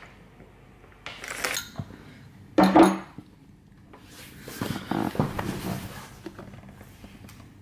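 A ceramic cereal bowl and a metal spoon being handled: scraping, clinking and clattering, with one loud knock of the bowl a little under three seconds in.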